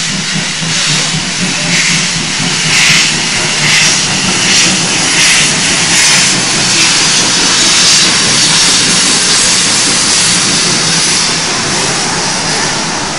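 Ex-Yugoslav Railways class 06 steam locomotive No. 06-018 running past at speed: loud steam hiss from its cylinders, pulsing with the exhaust beats in the first half. It is loudest as the engine goes by about eight seconds in, then eases.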